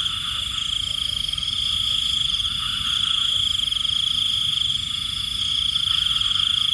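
Dense night chorus of calling insects and frogs: a steady, finely pulsing high trill with fainter, higher trilling layers over it, and a low rumble underneath.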